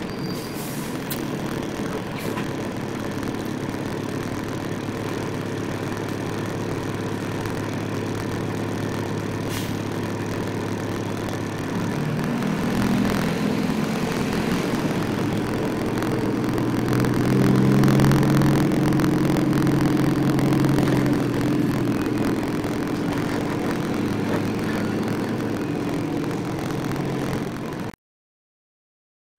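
Heavy recovery truck's diesel engine running at low speed, heard from inside the cab. Its note rises a little about twelve seconds in and again for several seconds a little later as the truck pulls through the yard. The sound cuts off abruptly near the end.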